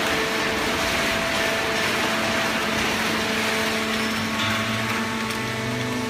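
Fully automatic horizontal cardboard baler and its chain feed conveyor running: a steady machine noise with several steady hums, a deeper hum joining near the end.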